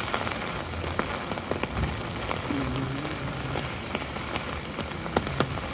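Rain falling on an umbrella held overhead: a steady hiss of rain with many sharp ticks of single drops striking the canopy.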